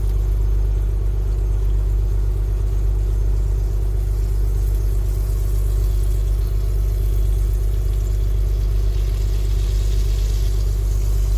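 Steady low rumble and hum of an idling truck engine, heard from inside the cab.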